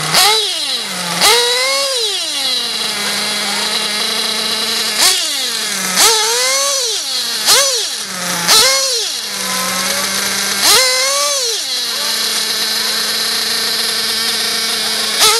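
Nitro RC car's small glow-fuel engine idling and being blipped: about eight quick throttle revs that climb sharply in pitch and drop back to a steady idle, with longer spells of plain idling in between.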